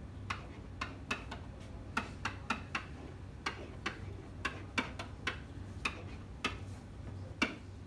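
Dry-erase marker tapping and scraping on a whiteboard as letters are written, heard as a string of sharp, irregularly spaced clicks, about two or three a second.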